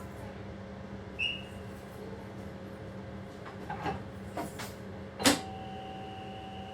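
Train driver's cab: a steady electrical hum with a short high beep, a few light clicks, then a sharp click about five seconds in, after which a steady high-pitched tone starts and keeps sounding.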